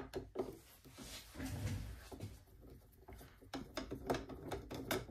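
Screwdriver backing a screw out of a sewing machine's bottom cover: faint, irregular small clicks and scrapes of the tip and screw, coming thicker near the end.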